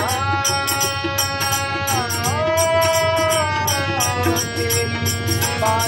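A man singing a bhajan to harmonium and tabla. The voice holds long notes that slide into pitch, one held for over a second midway, over the harmonium's steady reed chords and a running tabla beat.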